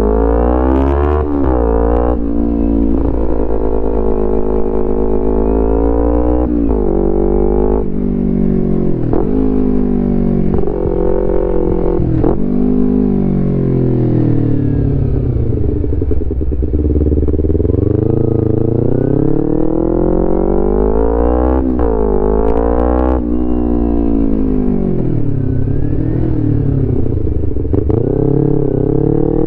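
2011 Kawasaki Ninja 250R's parallel-twin engine through a full Graves racing exhaust, pulling hard through the gears. The pitch climbs, drops sharply at each upshift and climbs again, and twice the revs fall away as the bike slows before it pulls away once more.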